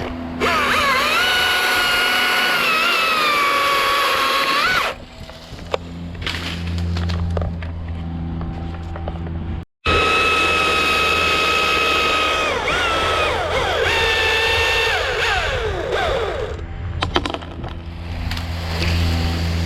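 Husqvarna T540iXP battery chainsaw running and cutting wood in two long bursts, its high electric whine sagging lower in pitch as the chain bites under load. A low steady hum and a few knocks come between the cuts.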